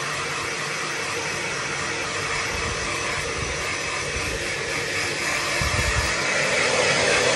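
Handheld hair dryer blowing steadily on its low heat setting, drying a dog's wet fur; it grows a little louder about five seconds in as it swings closer.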